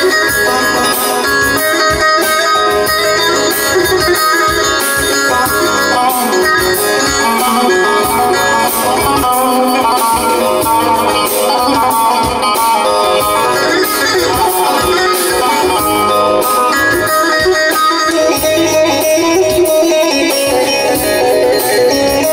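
Electric bağlama (long-necked Turkish lute) playing a steady instrumental passage of a Teke-region folk tune at even loudness, with no singing.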